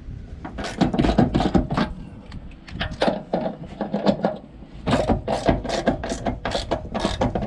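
Hand socket ratchet clicking in quick back-and-forth strokes, about three to four clicks a second, as a nyloc nut on a caravan leaf-spring bolt is run up snug, in three runs with short pauses between them.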